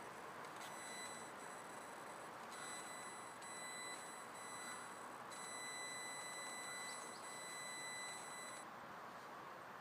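Audi S4 B5 throttle body giving a steady high-pitched whine, the strange noise the owner is recording, over a steady hiss. The whine starts about a second in and cuts off near the end.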